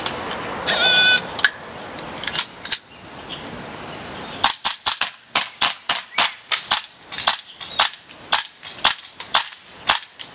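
Airsoft guns firing: a few scattered shots, then from about halfway a steady run of quick single shots at roughly three to four a second, each a sharp crack. About a second in there is a brief high-pitched tone.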